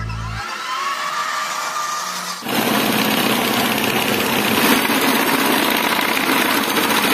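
A power tool running steadily and loudly as a harsh, even noise, cutting in about two and a half seconds in after a quieter stretch.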